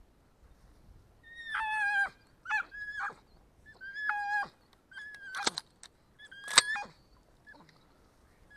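Jagdterrier yelping in a series of short, high-pitched calls with pauses between them while swimming after a wounded duck, the excited cries of a hunting dog on a chase.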